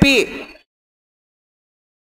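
A voice finishing one spoken word, which ends about half a second in, then complete silence.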